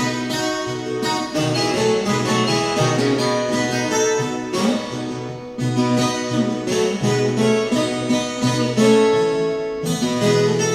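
Viola caipira, the Brazilian ten-string folk guitar with steel strings in pairs, playing a fast instrumental solo picked with a plectrum. Many notes are sounded two at a time.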